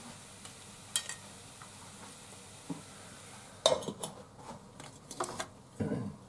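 A cabbage pancake frying faintly in a pan, with a chopstick or spatula clicking down on a plate about a second in. About three and a half seconds in, a metal lid clatters onto the frying pan, followed by several smaller knocks and taps of kitchenware.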